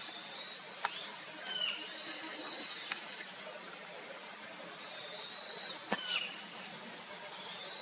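Birds chirping: short whistled calls and chirps, some gliding in pitch, including a long thin whistle around two to three seconds in and a louder chirp just after six seconds, over a steady hiss. Three sharp clicks fall among them, the loudest at about six seconds.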